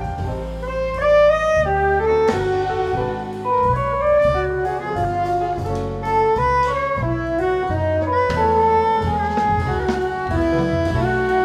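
Live jazz band playing: a saxophone carries the melody over upright double bass, piano, electric guitar and drums with cymbals.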